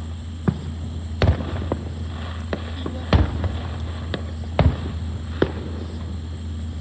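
Fireworks going off, a string of sharp separate bangs at irregular intervals, some louder than others, with the biggest reports about a second, three seconds and four and a half seconds in.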